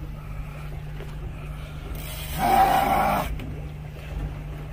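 Steady low hum of the boat's engines, with a short, drawn-out bleat-like cry, likely a person straining, lasting under a second about halfway through.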